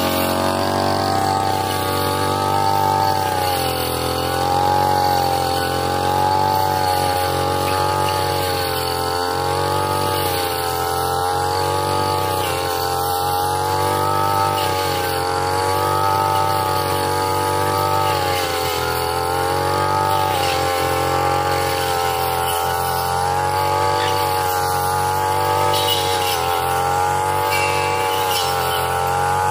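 Backpack brush cutter engine running at high revs with a circular cutting blade, cutting through grass and weeds; its pitch wavers slightly up and down every second or two as the blade meets the growth.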